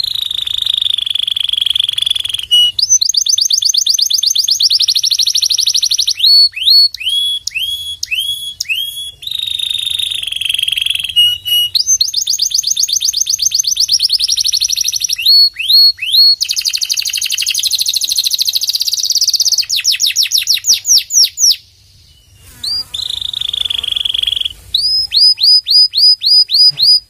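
Domestic canary singing a long, loud song. High buzzing rolls alternate with fast trills and runs of sharp swooping chirp notes, with a brief pause about 22 seconds in.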